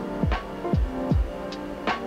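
Background electronic music with a steady beat: a deep falling kick drum about twice a second, light ticks above it, and held chords.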